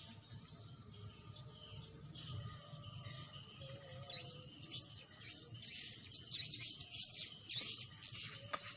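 Swiftlets twittering: a dense chatter of high chirps that grows busier and louder from about four seconds in.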